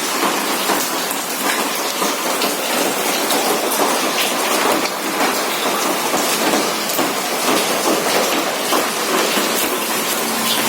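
Heavy rain falling steadily: a dense, even hiss full of fine drop patters.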